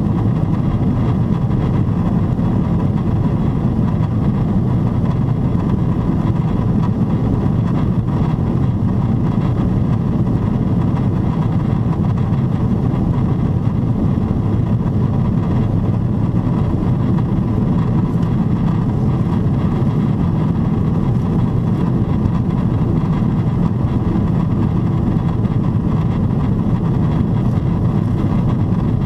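Steady low cabin noise of a Boeing 777-300ER in level cruise at about 29,000 feet: the rush of air along the fuselage blended with the drone of its GE90-115B engines, with a faint steady tone above it.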